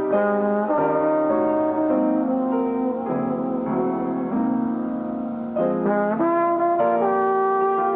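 Jazz trombone and piano duet playing a slow ballad, the trombone holding long, smooth notes over the piano's chords.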